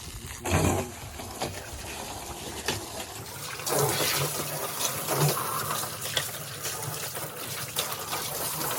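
Water pouring into a large barrel, filling it with a steady rushing splash that grows louder a few seconds in; a short thump about half a second in.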